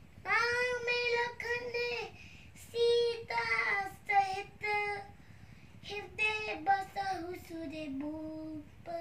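A young boy singing a Hindu devotional verse solo, without accompaniment, in phrases of held, wavering notes with short breaks between them.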